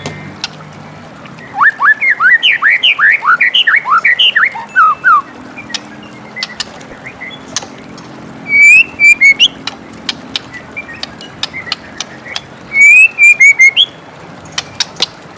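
White-rumped shama (murai batu) singing: three bursts of quick, rising whistled notes, the first and longest early on the way to the middle, then two shorter phrases, with scattered sharp clicks between them.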